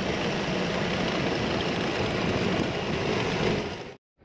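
Kubota DC-70 combine harvester's diesel engine running steadily under a heavy downpour, with the hiss of rain mixed in. The sound fades out quickly just before the end.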